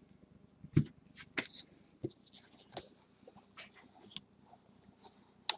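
Gloved hands handling a gold metal trading-card briefcase: a knock about a second in, then scattered clicks and taps as the case is opened and the cards inside are handled, with a sharp click near the end.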